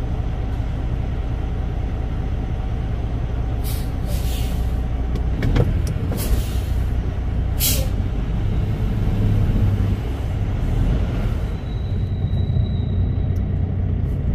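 Semi truck's diesel engine running low and steady as the truck creeps forward. Several short hisses come about four, six and seven and a half seconds in.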